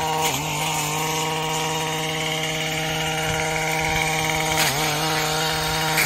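Small engine of a motorised grass cutter running steadily at high speed, its pitch dipping briefly and recovering near the start and again near the end.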